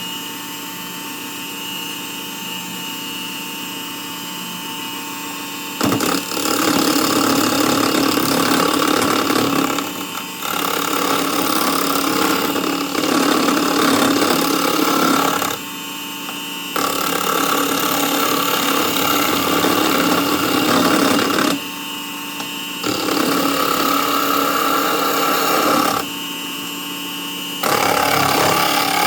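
Wood lathe motor running with a steady whine, then a turning tool cutting into the spinning wood in five passes of a few seconds each, with short breaks where only the motor is heard.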